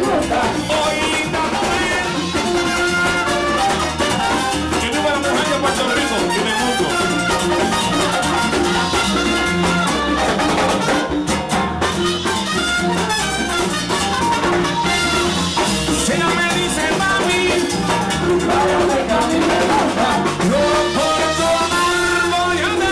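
Live Puerto Rican plena band playing: a lead singer on microphone over panderos hand drums, congas and keyboard, with a steady dance beat.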